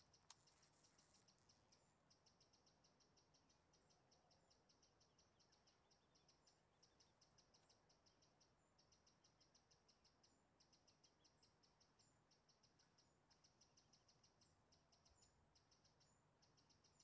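Near silence, with faint insect chirring: repeated runs of rapid high ticks, each about a second long, and a few faint higher chirps between them.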